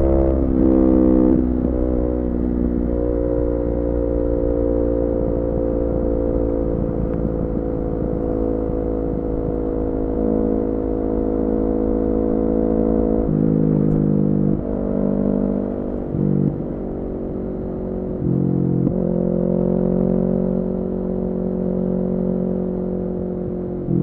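Kawasaki Ninja 400's parallel-twin engine running through an Akrapovic full-system exhaust while riding. It makes a few quick pitch changes in the first second or so, then holds a steady, slowly falling note for about ten seconds. In the second half it revs up and drops several times, then settles on a higher steady note.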